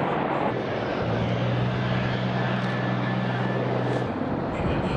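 Military helicopter running close by: a steady low engine hum over a rushing rotor and wind noise.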